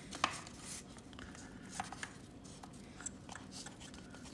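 Faint rustling and scattered small clicks of a sleeved O2-sensor extension lead being fed by hand through the motorcycle's plastic panels.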